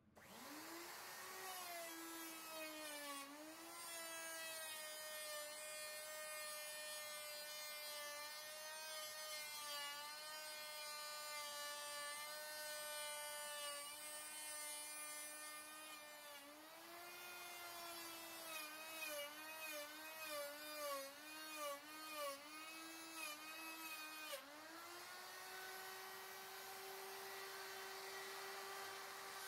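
Electric router spinning up and running while cutting a rabbet in a wooden door frame. Its whine drops in pitch each time the bit bites into the wood, wavers through the middle of the cut and steadies near the end. The router is being fed in the wrong direction for this cut, so it tends to pull ahead.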